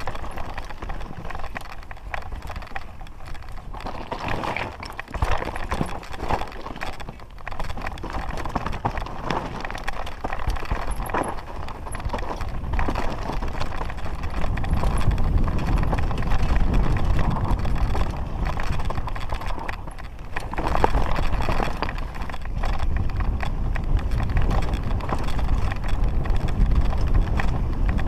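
Mountain bike descending a rough, stony trail: tyres crunching and bumping over loose rocks, with the bike rattling in a constant irregular clatter of knocks. Wind buffeting the camera adds a low rumble that grows heavier from about halfway as speed builds.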